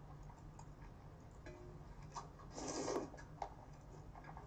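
Cold spicy noodles (bibim-naengmyeon) being slurped from a stainless steel bowl, with one louder slurp just before three seconds in, and small clicks of chopsticks against the bowl. A low steady hum lies underneath.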